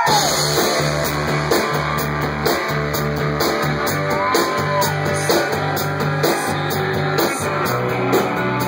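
Rock band playing live: electric guitar, bass and drums at full volume with a steady beat and repeating bass notes, with a few bent notes rising and falling over the top.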